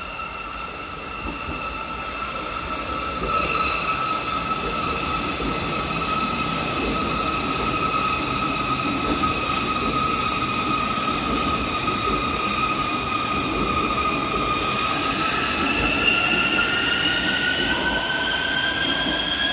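Metro train passing through the station: a rumble of wheels on rail with a high whine in two pitches. The sound swells over the first few seconds, and the whine climbs in pitch over the last few seconds.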